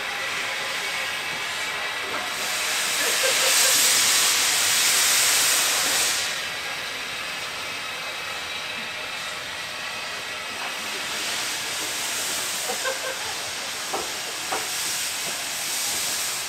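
Lancashire and Yorkshire Railway 0-6-0 saddle tank steam locomotive hissing steam as it moves slowly away. The hiss swells louder from about two and a half seconds in for about four seconds, then settles to a steady, quieter hiss, with a few faint knocks near the end.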